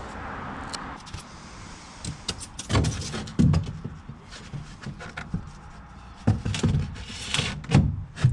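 A run of irregular knocks and clunks, with a brief scraping rustle about seven seconds in.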